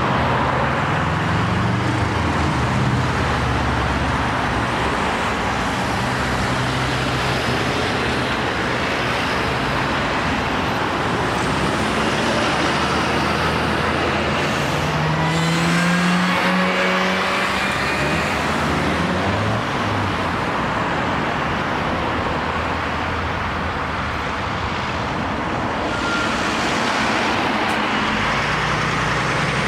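Road traffic: a steady stream of cars and vans passing close by, with engine and tyre noise. One engine revs up about halfway through, and a heavy articulated lorry's diesel draws near at the end.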